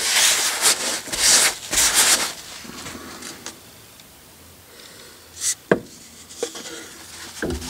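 A cloth rag rubbing and wiping over the Volvo V70's sheet-metal rear strut-tower mount, in scrubbing strokes for about the first two seconds. From about five and a half seconds in come a few sharp knocks as the new strut's shock rod is pushed up through the mounting hole.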